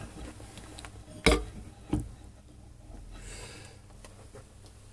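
Two sharp knocks about two-thirds of a second apart, with a faint rustle a little later, over a faint low steady hum.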